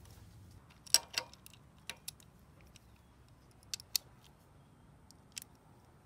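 A handful of sharp, scattered clicks and taps from a small plastic fuel pump and its steel mounting bracket being handled and fitted together, with a small 1/4-inch-drive ratchet and socket worked on the bracket bolt. The loudest clicks come about a second in and again just before the middle, with a lone click near the end.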